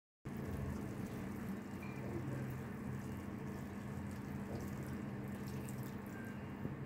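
Milk poured in a thin stream from a cup onto layered rice in a wide pan, a steady trickling splash, with a steady low hum under it.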